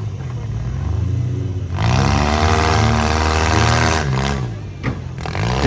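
Demolition derby vans' engines revving hard, rising and falling in pitch several times over a steady engine drone.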